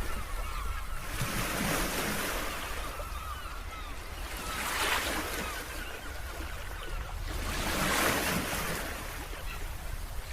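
Ocean surf: waves breaking and washing in, the rush swelling and easing about every three seconds over a steady low rumble.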